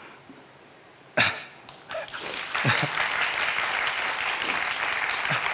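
Audience applauding, building from about two seconds in and holding steady. Just before it, about a second in, there is a short, sharp breath at the microphone.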